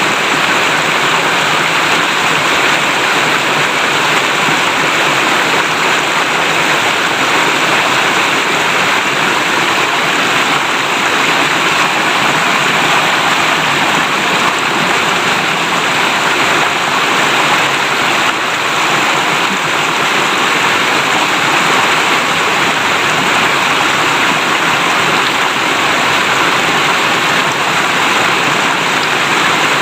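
River water flowing and babbling over stones in a shallow stream, a steady rushing with no breaks.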